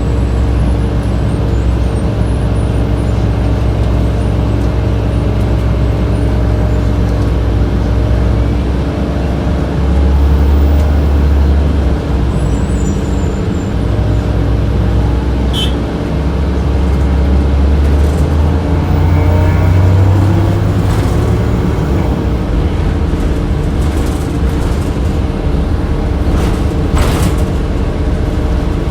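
Inside a 2007 Orion VII transit bus under way: the engine and HVAC blowers hum steadily, the deep engine rumble swells twice as the bus pulls, and a few sharp rattles come near the end.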